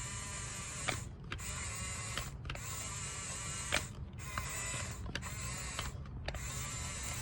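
Small electric gear motors of a toy RC bulldozer whirring with a high whine, cutting out briefly about five times and starting again, as the controls are worked.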